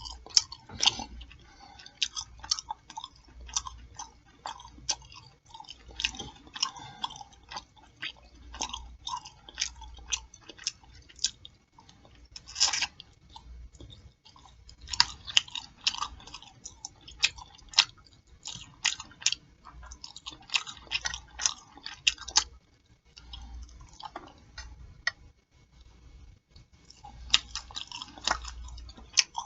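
Close-miked eating sounds from a pork chop plate: steady chewing with wet lip smacking and many quick irregular mouth clicks, broken by a few short pauses.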